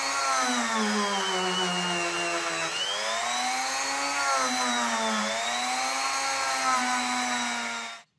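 Handheld rotary tool spinning a small brush bit against the metal wheels of an OO gauge model locomotive, cleaning dirt and old grease off the treads. A steady motor whine that wavers and dips in pitch twice, then cuts off near the end.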